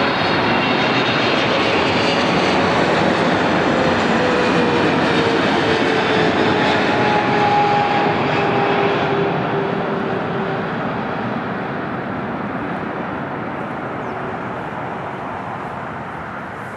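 Boeing 777-300ER's twin GE90 turbofan engines passing on landing: a loud jet roar with an engine whine that slides down in pitch, fading gradually over the last several seconds.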